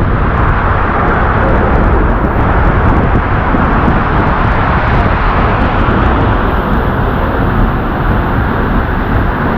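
Seljalandsfoss waterfall's roar from close behind the falling water: a loud, steady rush with a heavy low rumble.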